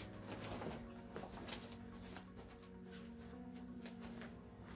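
Quiet background music with soft held notes that change pitch now and then, with scattered faint light clicks and rustles.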